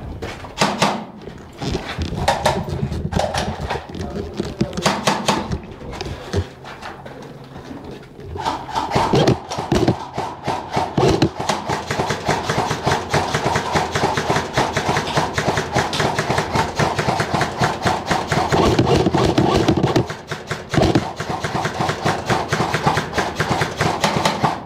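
Airsoft electric rifles firing: scattered shots and short bursts at first, then near-continuous rapid clattering of full-auto fire from about eight seconds in, with a short break about twenty seconds in.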